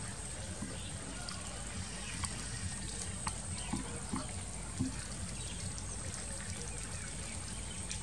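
Outdoor ambience: a steady low rumble and hiss with a constant thin high whine, faint scattered bird chirps and a few soft clicks.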